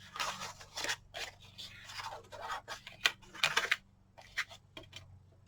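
Cardstock pieces being handled, slid and rubbed across a glass craft mat: repeated short scraping swishes with a few light taps.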